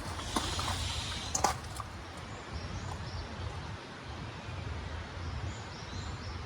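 Outdoor ambience: a steady low rumble and hiss, with a couple of short clicks in the first two seconds and a few faint bird chirps later on.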